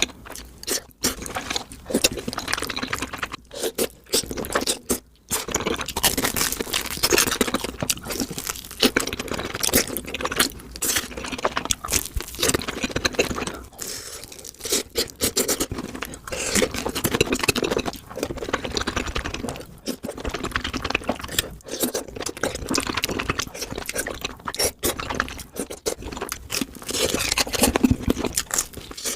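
Close-miked eating sounds played back sped up: a dense, continuous run of crunching, crackling and chewing of crispy food, with brief pauses.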